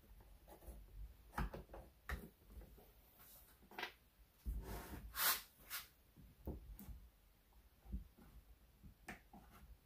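Scattered small clicks, scrapes and knocks of a screwdriver prying at a Stihl chainsaw's plastic rear handle and its rubber anti-vibration buffers, with a louder scraping clatter about halfway through.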